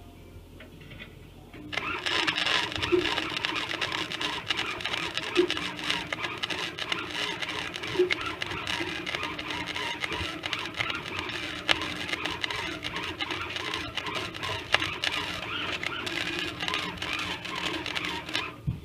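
Flux-core wire-feed welder (90 amp) arc crackling steadily in one long weld on a stainless steel patch. It starts suddenly about two seconds in and cuts off just before the end.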